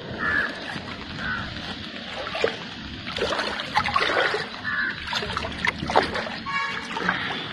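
Floodwater sloshing and lapping as a continuous noisy wash, with a few sharper splashes standing out.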